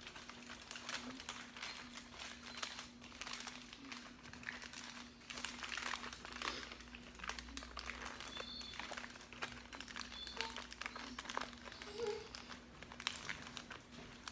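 Irregular crinkling and rustling of something being handled, with a steady low hum underneath.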